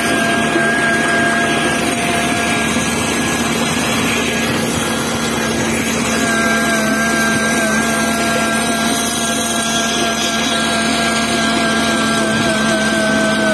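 Small tractor (malotraktor) engine running steadily as it drives along, with a constant low hum.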